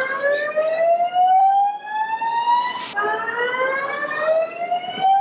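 Emergency evacuation alarm sounding a slow rising whoop: each tone climbs steadily for about three and a half seconds, then drops back and starts again, one sweep ending about three seconds in and the next beginning at once. It signals an emergency.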